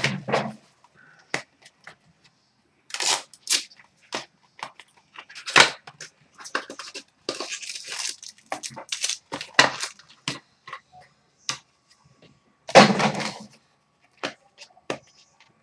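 Thin cardboard pack boxes being torn open by hand and the card packs pulled out: a run of irregular tears, crackles and clicks, loudest about thirteen seconds in.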